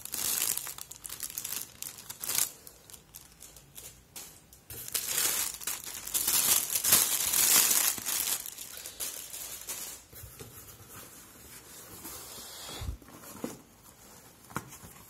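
Plastic air-pillow packing cushions crinkling as they are handled and pulled out of a cardboard box. The crinkling is loudest through the first half, then drops to fainter handling noise with a couple of light knocks after about ten seconds.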